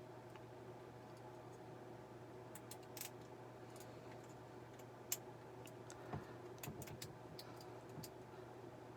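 Faint, scattered clicks and scrapes of a thin hook lock pick working the pin stack inside a Squire padlock's keyway, coming more often after about six seconds, over a steady low hum.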